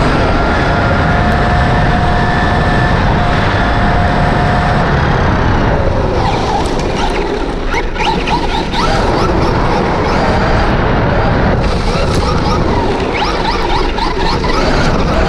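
Onboard sound of a Traxxas Rustler 4x4 RC truck driving fast: a heavy wind and road rumble with the brushless motor's steady whine over it for the first few seconds. From about six seconds in come many sharp ticks and knocks as the truck runs over rougher ground.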